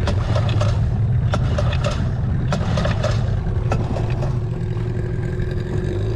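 Boat engine running with a steady low drone, with a run of sharp knocks and clicks over the first four seconds. Right at the end the engine note drops lower.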